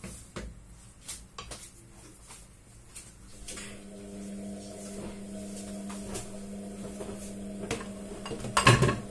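A spatula clinks and scrapes against a stainless steel pot as pancit noodles are stirred in the first couple of seconds. A steady low hum follows, and there is one loud clatter near the end.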